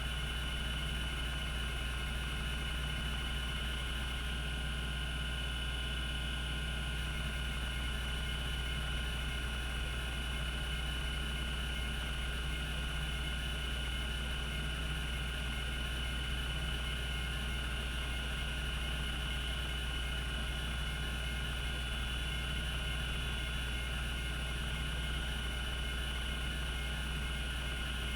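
Cogito Systems CG-912 10 MB half-height hard disk drive spinning at its 3600 RPM running speed: a steady low hum with a constant high whine, the heads not seeking.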